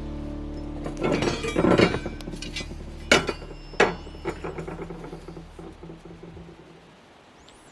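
Metal clinks and knocks from steel rebar and tie wire being handled. A quick cluster of clinks comes about a second in, then two sharper knocks a little before the middle and a few lighter ones after. Steady background music runs under them and fades away.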